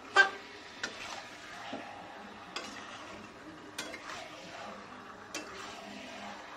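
Chicken sizzling in a pan as it is stirred and fried down with spices (kosha), the stirring utensil knocking against the pan: one sharp knock right at the start, then a few lighter ones.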